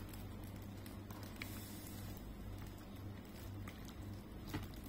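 Hand mixing marinated prawns with raw egg and flour in a bowl: faint soft squishing and light patter of fingers working the wet batter, with scattered small clicks.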